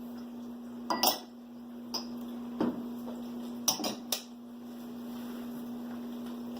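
A handful of short, light knocks and clinks at irregular intervals, including a quick run of three near the middle, over a steady low hum.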